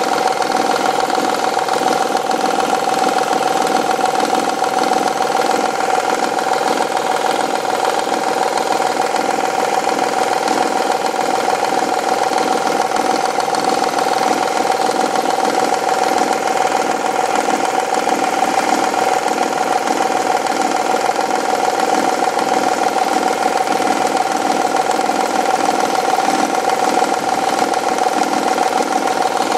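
Honda V6 engine running steadily with a fast, even knocking from a faulty timing belt tensioner, a noise that seems to come from the rear-bank cylinder head.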